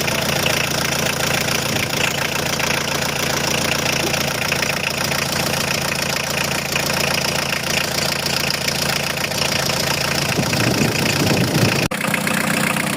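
Van engine idling steadily, run to circulate coolant after a new coolant expansion tank was fitted. The sound breaks off abruptly for an instant about a second before the end, then the idle carries on.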